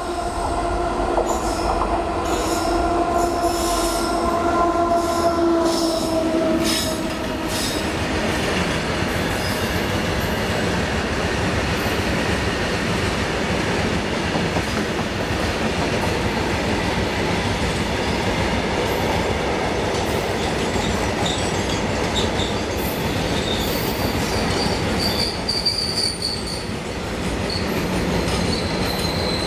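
Loaded BOXN coal wagons hauled by a WAG-9 electric locomotive rolling past. In the first six or seven seconds a steady pitched hum from the locomotive sinks slightly and fades out, with repeated clanks of wheels over rail joints. After that the rake's steady wheel-on-rail rumble continues, with a high thin wheel squeal near the end.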